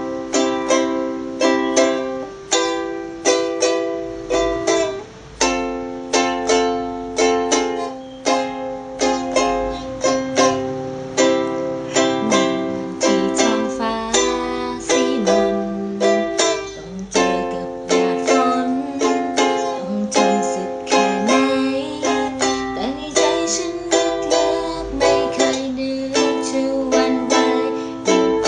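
Music: a plucked string instrument strumming chords in a steady rhythm, played in a small room.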